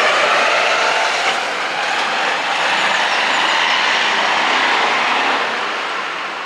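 Late-1970s Kenworth W900 truck's diesel engine running steadily as the truck drives away, fading off toward the end.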